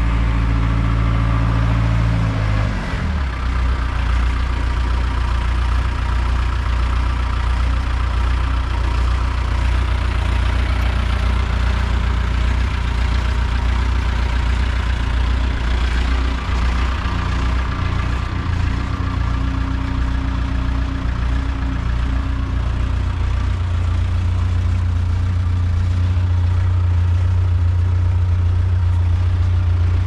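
Case 410 skid steer's engine running, slowing from a higher speed to a steady idle about two to three seconds in. It grows a little louder near the end.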